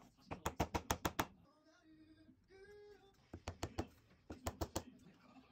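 Three quick runs of sharp clicks, about eight a second, with a short steady tone in the middle.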